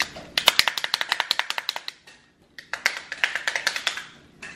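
Rapid clicking, about eight clicks a second, in two runs of roughly a second and a half each, with a short pause between them.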